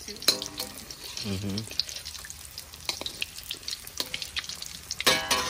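Breaded pork cutlet (tonkatsu) deep-frying in a wok of hot oil, a steady sizzle with dense crackling and popping, as chopsticks turn the cutlet in the oil.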